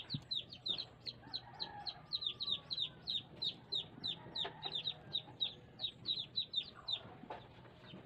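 Chickens calling: a steady stream of short, high, falling peeps, about four a second.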